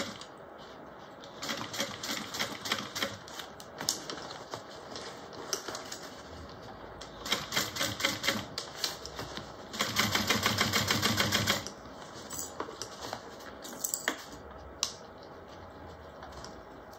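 Juki industrial sewing machine stitching canvas binding onto a bag seam in several short runs, the needle mechanism ticking rapidly and stopping between runs as the fabric is repositioned. The longest and loudest run comes about ten seconds in and lasts about a second and a half.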